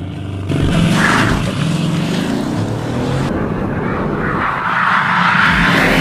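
Bugatti Chiron's quad-turbo W16 engine accelerating hard from a launch-control start, with a sudden loud surge about half a second in and a rush of noise building toward the end.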